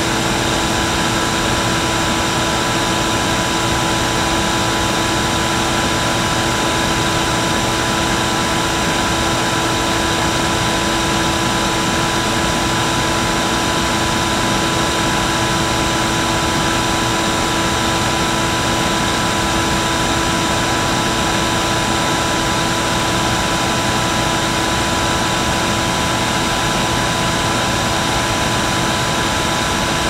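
Vacuum cleaner motor running continuously at one speed: a steady whine over a rush of air, with no change in pitch or loudness.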